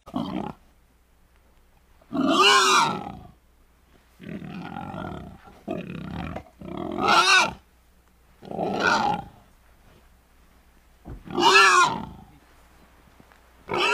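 Warthog vocalising at close range: a series of loud pitched grunting calls, each about a second long and wavering in pitch, with quieter rasping, snuffling sounds between them.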